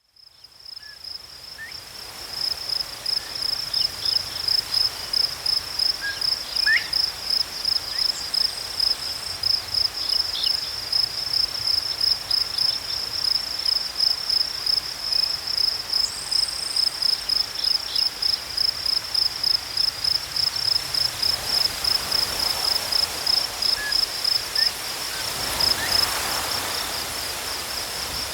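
Insects stridulating in grass: one steady, high-pitched chirring that pulses in an even rhythm, fading in over the first few seconds. A few faint, short bird chirps sound now and then.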